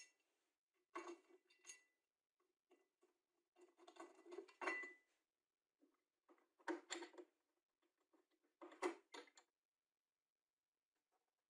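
Light metallic clinks and rattles of small metal parts and a screwdriver being handled, in four short bursts, as an aluminium handle is screwed onto an electric planer's body.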